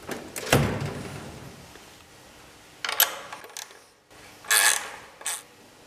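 A steel tool-chest drawer slides shut with a bang and a rattle about half a second in. Short metallic clicks and clinks follow as a wrench works on the overflow bottle's mounting bracket.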